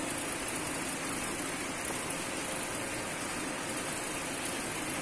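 Variable speed centrifugal pump test rig running steadily: an even, unchanging machine noise with a faint hum.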